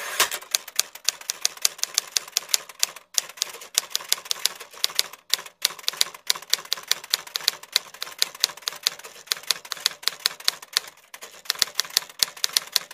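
Typing sound: a fast, even run of key clicks, about five or six a second, pausing briefly twice, keeping time with on-screen caption text being typed out letter by letter.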